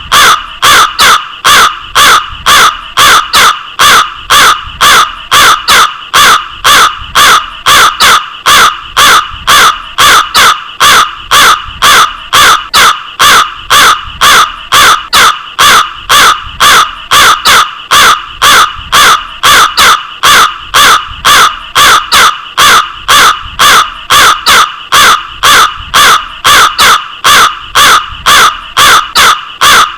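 Crow cawing over and over, harsh calls repeating evenly at about two a second without a break.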